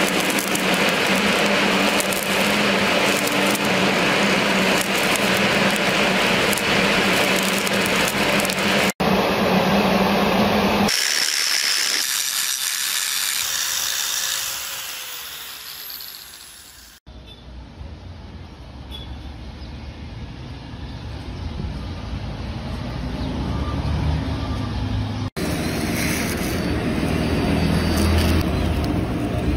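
Angle grinder with its disc grinding steel. It runs steadily at first, then partway through its pitch falls and the sound dies away as it winds down, before a lower steady noise of the tool working picks up again.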